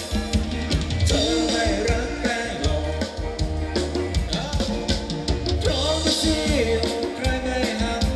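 Thai ramwong dance band playing: a singer over a steady drum-kit beat and bass.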